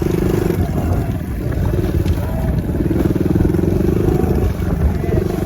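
Small engine of a farm vehicle running steadily at low speed while moving a dairy herd along the race.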